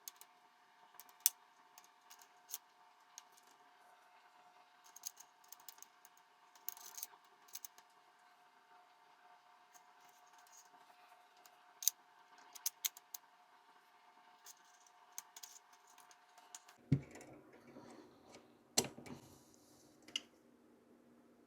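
Scattered small clicks and taps of metal pistol parts being handled during reassembly of a 1911, over a faint steady hum that stops about three-quarters of the way through.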